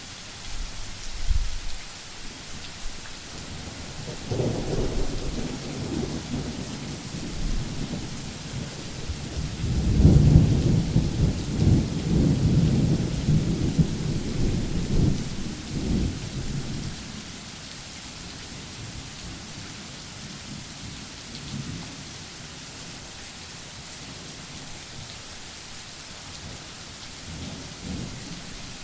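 Steady rain hissing, with thunder over it: a short clap about a second in, then a long rolling rumble that builds from about four seconds, is loudest around ten to fifteen seconds and dies away. A faint further rumble comes near the end.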